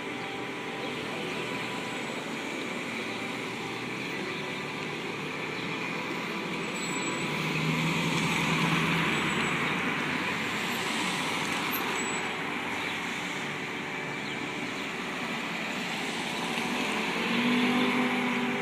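Church bells pealing for Sunday Mass: many bells ringing at once, their overlapping tones forming a continuous wash that swells about eight seconds in and again near the end, with passing traffic underneath.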